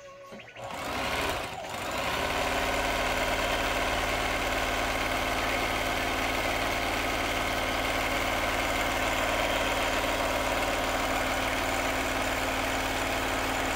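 Singer electric sewing machine starting up about a second in, then running steadily at speed as it stitches fabric.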